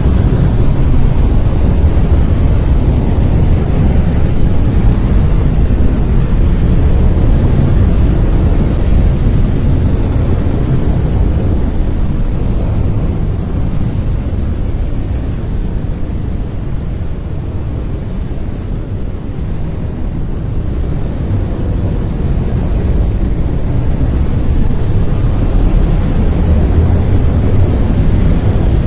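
Brown noise: a steady, deep rumbling hiss, strongest in the bass, easing slightly quieter around the middle before coming back up.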